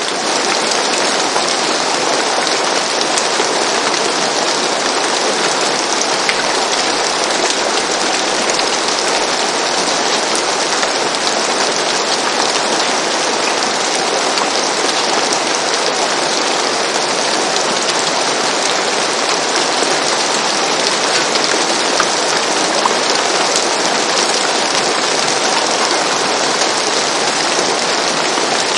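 Steady rain falling on a roof, a constant dense patter with fine crackle of individual drops.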